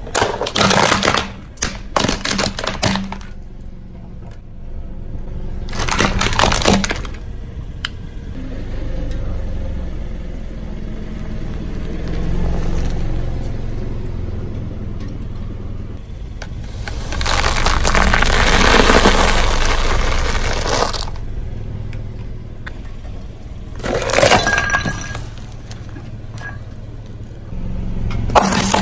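A car tyre rolls over brittle objects and crushes them, making separate bursts of cracking and crunching. Several short bursts come near the start, and the longest and loudest comes past the middle. A low rumble from the car runs underneath.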